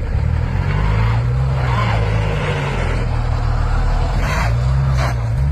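A heavy engine running loud, its low pitch rising and falling a few times as it revs up and settles.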